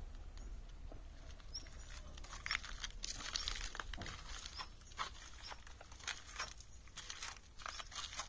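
Footsteps crunching on gravel at a slow, irregular walking pace, over a steady low rumble.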